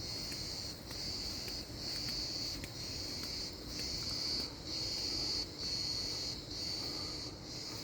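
Crickets singing: a high, buzzing trill in bursts of about a second, broken by short gaps, over a faint steady low hum.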